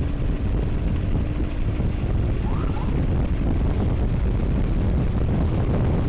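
Wind rushing over the microphone of a moving motorcycle, with steady engine and road rumble underneath.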